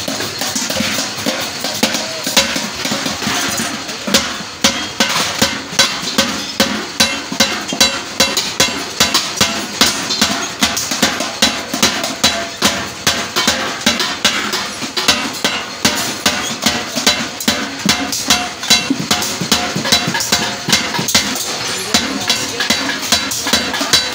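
A hand hammer striking the bottom rim of a galvanized steel bucket in a steady rhythm, about two sharp metallic blows a second, starting about four seconds in.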